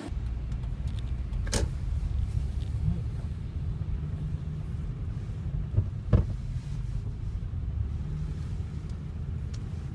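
Low steady rumble of a 2005 Honda Pilot's engine and road noise heard from inside the cabin, with two short clicks, one about a second and a half in and one about six seconds in.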